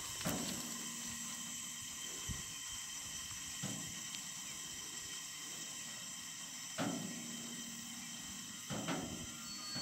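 Stone train's hopper wagons barely moving, giving a few soft knocks several seconds apart over a steady high hiss. A thin, high wheel squeal begins near the end.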